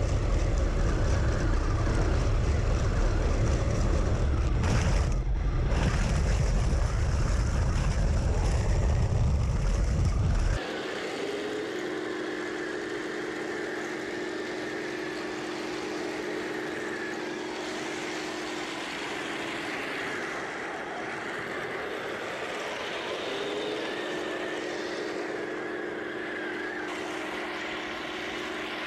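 Heng Long 1/16 Challenger 2 RC tank driving over rough grass. For the first ten seconds there is a loud low rumble of the tracks and running gear heard close up. It cuts off suddenly, and the tank is then heard from a distance as a steady hum, rising briefly in pitch twice.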